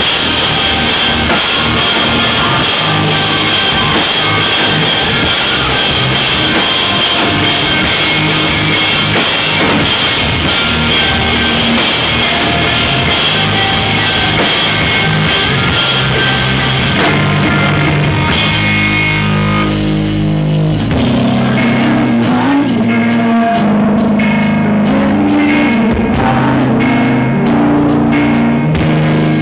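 Live rock band playing amplified electric guitars and drum kit. About two-thirds of the way in the sound thins briefly, then the drums settle into a steady beat under the guitars.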